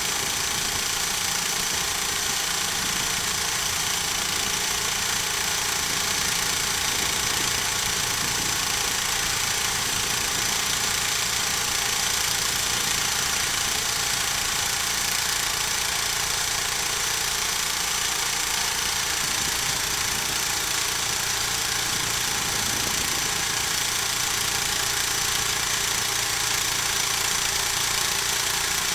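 Homemade sawmill running steadily on its engine, with a steady high whine over the engine noise and no change in loudness.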